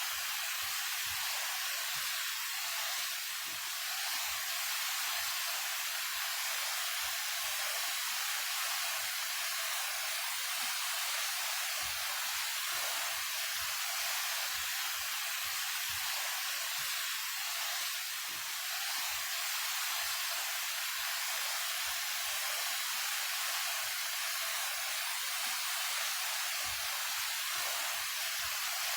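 Daehye Falls, a 28 m waterfall, pouring steadily: a constant, even hiss of falling water and spray.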